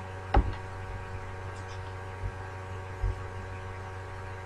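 Steady electrical hum on an open microphone. One sharp knock comes about half a second in, and two softer thumps follow later.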